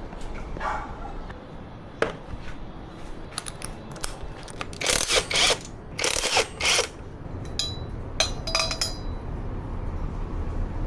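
Metal tools and parts being handled: a click, two loud stretches of scraping and rattling near the middle, then several short ringing metallic clinks.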